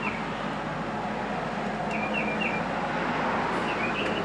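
Steady background rumble, like traffic or a vehicle going by, with a small bird chirping short notes in groups of two or three, about two seconds in and again near the end.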